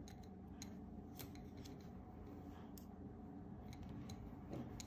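Faint, irregular light clicks of double-pointed knitting needles tapping against each other as stitches are worked.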